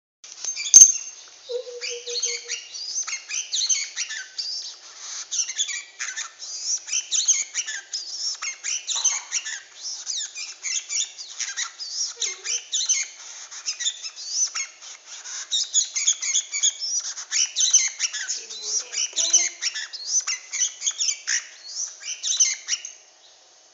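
Red-whiskered bulbul (chào mào) singing a rapid, unbroken stream of high chirps and chattering notes during the male's wing-spreading courtship display. There is a sharp click about a second in.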